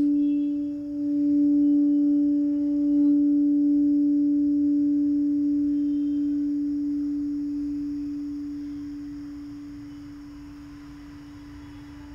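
Singing bowl ringing out after being sounded: one steady low hum with a slow wavering swell, its fainter higher tones dying away within the first few seconds, the whole fading gradually over about ten seconds.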